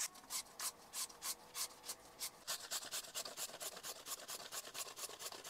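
Young green papaya being shredded on a plastic julienne slicer: a steady run of rasping strokes, about three a second, quickening to about four a second about halfway through.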